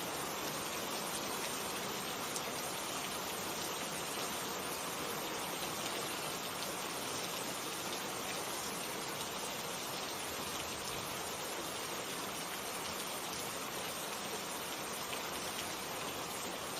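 Steady rainfall: an even hiss of rain with fine drop patter and no change in intensity.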